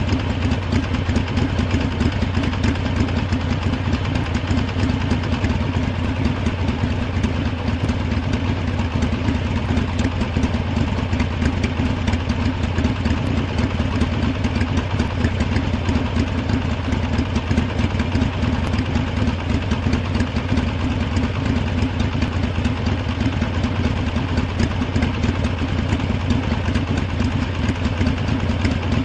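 Harley-Davidson V-twin motorcycle engine idling steadily, with an even run of firing pulses and no revving.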